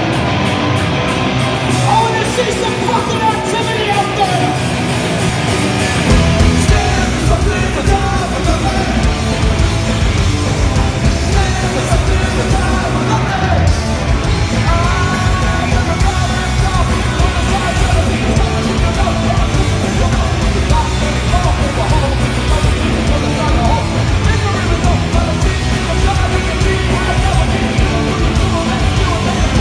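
Punk rock band playing live: shouted lead vocals over distorted electric guitars, bass and drums, heard from the audience in a concert hall. The full low end of the band comes in about six seconds in.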